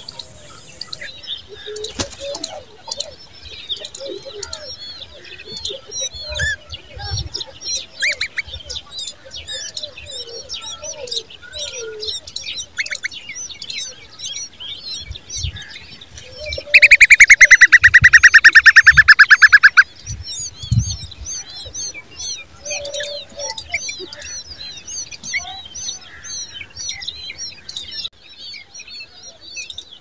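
Common babblers at the nest chirping: a steady stream of short, high chirps. A little past the middle comes a loud, rapid, rattling call, falling slightly in pitch and lasting about three seconds.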